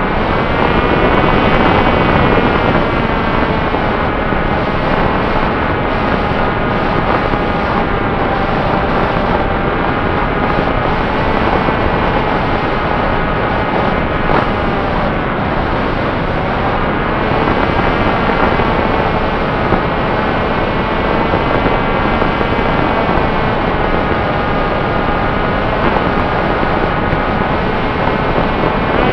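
Electric motor and propeller of an FX-61 flying-wing model plane running steadily, its whine drifting slowly up and down in pitch, under heavy wind noise on the microphone.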